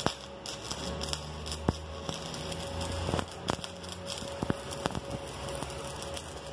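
Stick-welding arc crackling and spitting as a 1/8-inch electrode burns along a steel plate, with sharp pops every second or so. The inverter welder's current has not been adjusted for this electrode size.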